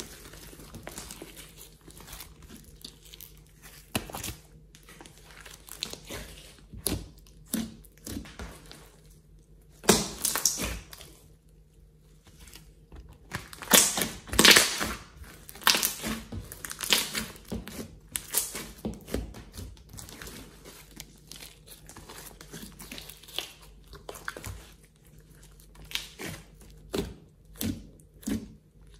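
Hands kneading, pressing and stretching a large batch of glossy slime, making wet sticky squishing sounds. They come in irregular bursts of varying loudness, the loudest cluster about fourteen seconds in.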